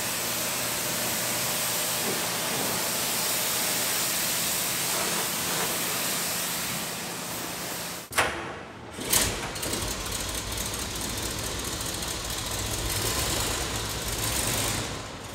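Pressure washer spraying water onto a car's bodywork: a steady hiss of spray over the hum of the pump motor. About eight seconds in, the sound cuts off abruptly and there are two sharp clicks, then a steady hiss with a deeper rumble carries on.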